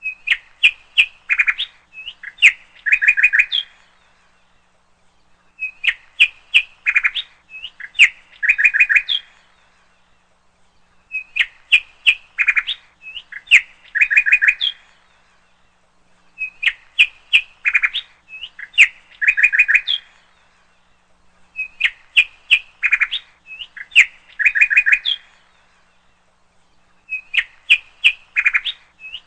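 Bird chirps and quick trills in a short song phrase. The same phrase repeats the same way about every five and a half seconds, six times over, with short pauses between.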